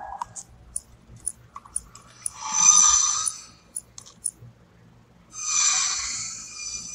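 Horror film sound design: scattered sharp ticks, then two rushing whooshes of about a second each, the first about two seconds in and the second near the end.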